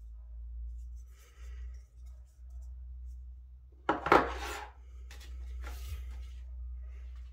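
An aluminium USB-C hub is handled and set down on a desk, with a short, loud scraping clatter about four seconds in as it meets the surface. Lighter rubs and clicks come before and after it, over a low steady hum.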